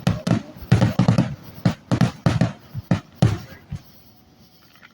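A rapid volley of fireworks exploding, about a dozen deep booms in quick succession that stop about three and a half seconds in.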